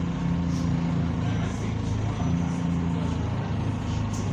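Bus diesel engine running under way, heard inside the passenger saloon; its low note steps in pitch about a second in and again a little past two seconds. The engine has been modified and sounds like an older Euro 3 bus engine.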